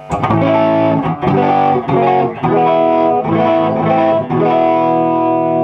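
Electric guitar, a Gibson Les Paul with P90 pickups, played through a hand-built Hiwatt DR103 clone 100-watt valve amp head with a bit of crunch. A run of picked chords and notes, the last one held ringing near the end.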